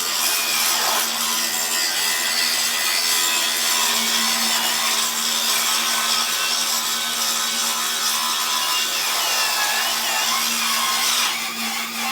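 Battery-powered power tool cutting into old steel, running steadily at full load and then easing off about a second before the end.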